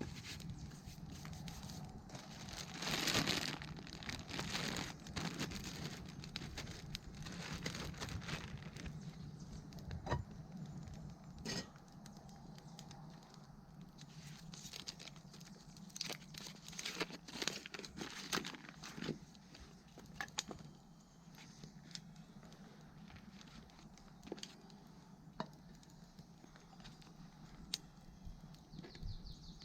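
Rustling and crinkling with many scattered sharp snaps and clicks, and a louder rustle about three seconds in.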